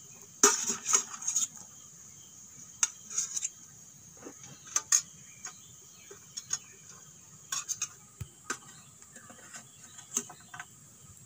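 Small red shallots (pearl onions) dropped by hand into a wide metal pan of grated coconut, with irregular light clicks and taps as they land, over a faint steady hiss.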